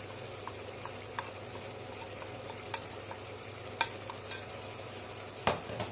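Mutton and spices sizzling quietly in mustard oil in an aluminium pressure cooker, with light clicks of a metal spoon tapping on a plate as spice powder is spooned in. A few louder clicks come in the second half, the loudest near the end.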